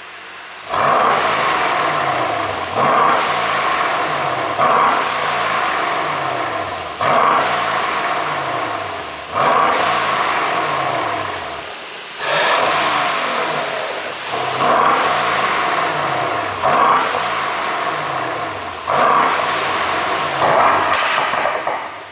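Mercedes-AMG S63 Coupe's twin-turbo 4.0-litre V8 revved in about ten quick blips. On each fall back in revs the exhaust gives off crackles and pops, the sign of a tune set up for overrun pops.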